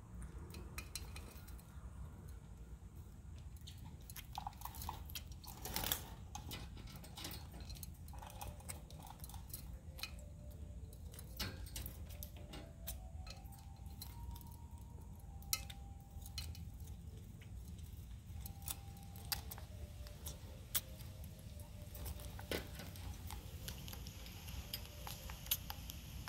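Blue parrotlet bathing in a plastic bath bowl: scattered small splashes and flicks of water and light taps against the bowl, coming irregularly over a steady low hum.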